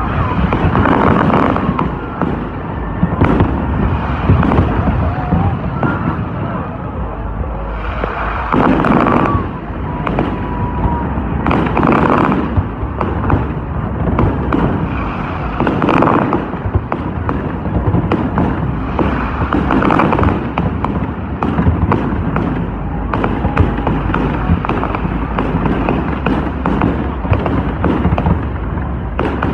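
Fireworks display: aerial shells bursting in quick succession, with continuous crackle and heavier bangs every few seconds.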